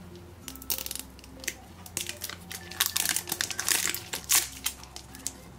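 Plastic packaging wrap of an L.O.L. Surprise ball crinkling as it is peeled off and unwrapped by hand, in many short, irregular crackles.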